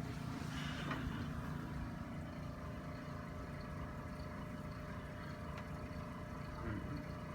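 Steady low mechanical hum, with a few faint brief rustles.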